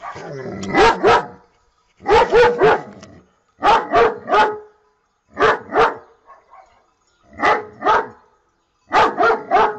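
German Shepherd barking in quick runs of two or three loud barks, six runs spaced a second or two apart.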